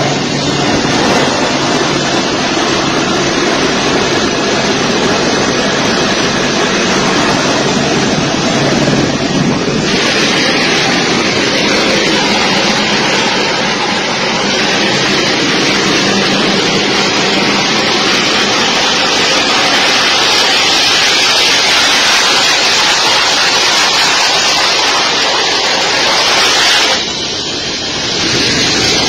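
Jet engines of a US military transport plane running as it rolls down the runway, heard as a loud, steady roar mixed with rushing wind on the phone's microphone. The hiss grows stronger in the second half, with a brief drop near the end.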